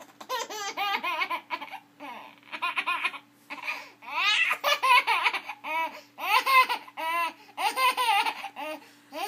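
A young child laughing hard in a long run of high-pitched bursts, with short breaths between them, set off by a sneeze.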